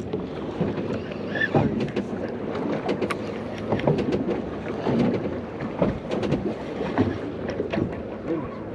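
Wind buffeting the microphone and water against a small fishing boat's hull, over a steady low hum, with scattered short clicks and knocks.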